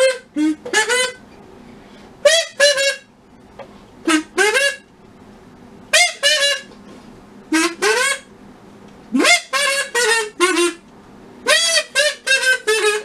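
Short, reedy honking notes from a small wind instrument, blown in groups of two or three with pauses between them; several notes slide up into their pitch, and a longer run of notes comes near the end.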